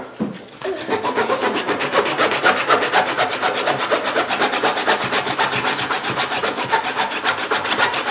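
A blade sawing back and forth through the hard inner core of a cricket ball, a steady fast rasping made of many short repeated strokes that starts about half a second in.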